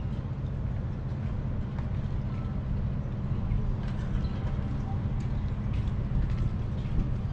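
Ocean surf heard as a steady low rumble, with faint distant voices.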